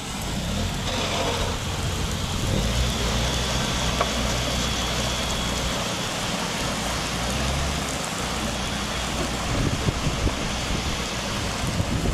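Excavator's diesel engine running steadily under load, a low rumble beneath a constant noisy rush, with a few light knocks near the end.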